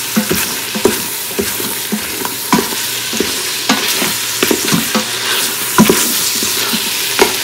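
Bone-in beef pieces sizzling as they fry in oil and spices in an Instant Pot's stainless steel inner pot, with irregular knocks and scrapes of a wooden spoon stirring them against the pot. This is the bhuna stage, frying the meat and masala to drive off the raw smell.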